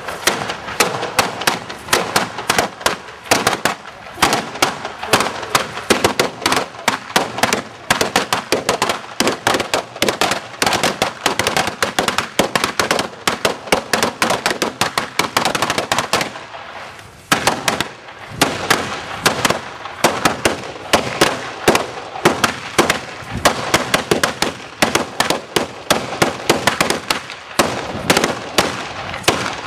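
A string of firecrackers going off in a rapid, continuous crackle of sharp bangs. It breaks off for about a second midway, then resumes.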